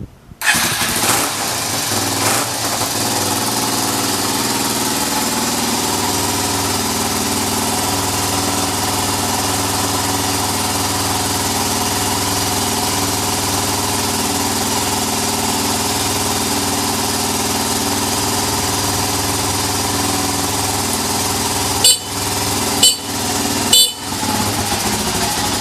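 Yamaha TT250R's air-cooled single-cylinder four-stroke engine catching at once on the electric starter, then idling steadily with no abnormal noise. Near the end the sound changes briefly three times, about a second apart.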